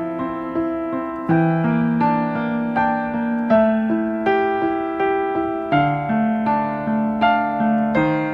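Background piano music: a gentle melody with notes struck at an even pace, each ringing and fading.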